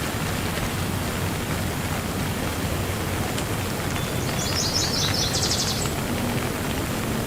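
Steady rain falling. Near the middle a bird calls once: a quick run of high chirps that turns into a rapid trill lasting about a second.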